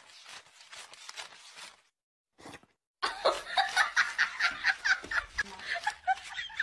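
A person laughing in quick, rhythmic bursts, starting about halfway through. Before that come softer, short crackly sounds.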